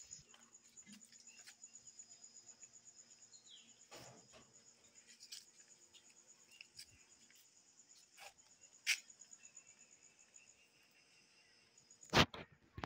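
Crickets chirping in a fast, steady high trill. A few sharp knocks break in, the loudest near the end.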